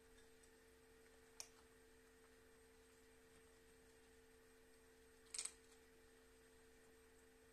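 Near silence: faint room tone with a steady low hum, broken by two short clicks, one about a second and a half in and a slightly longer crackle about five seconds in.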